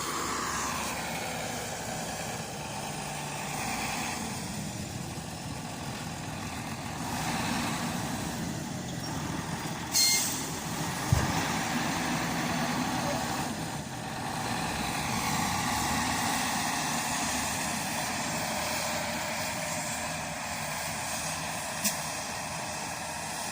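Heavy vehicle engine running steadily, swelling and easing a few times, with a brief sharp hiss about ten seconds in and a knock just after.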